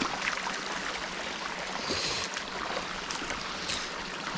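Shallow rocky stream running and burbling over stones, heard close up.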